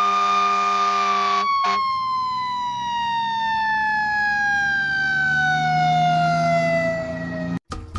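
A siren held at one pitch for about a second, then winding slowly down in pitch over about six seconds, like a siren running down, before it cuts off near the end. A low steady hum runs underneath it.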